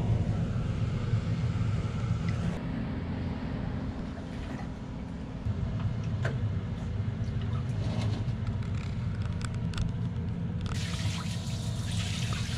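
Water sloshing and splashing in a large shallow tray as gloved hands work in it, with scattered small splashes. About ten and a half seconds in, a hand-held shower hose starts spraying into the tray with a steady hiss. A low steady rumble runs underneath.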